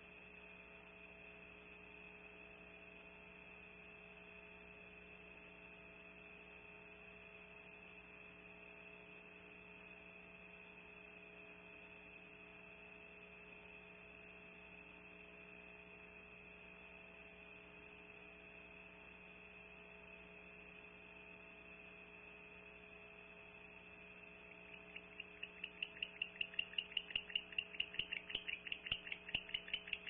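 Steady electrical hum from the nest-cam microphone. About 25 seconds in, owls outside the nest cavity start a rapid series of clicking, chattering calls, several a second, that quickly grow louder.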